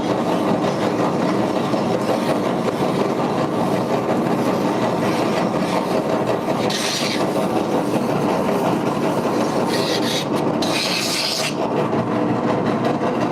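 A drum sander runs steadily. A few brief rasping hisses come in the second half, as something is pressed against the spinning abrasive drum while it is sanded and cleaned.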